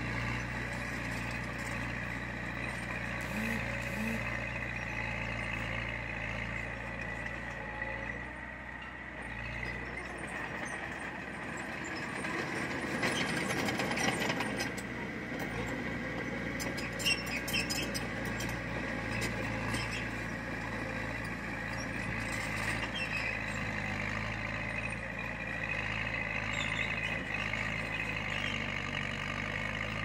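Heavy diesel earthmoving machinery working: an engine runs steadily, with a louder, noisier stretch about halfway through.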